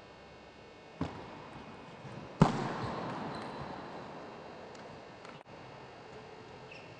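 A light knock, then about a second and a half later a much louder sharp bang that rings on in the large hall, dying away over a couple of seconds.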